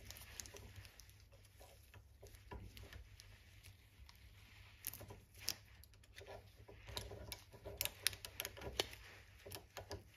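Faint, scattered small metal clicks and scrapes, thicker in the second half: steel picks prying a multi-wound snap ring out of a socket ratchet's head.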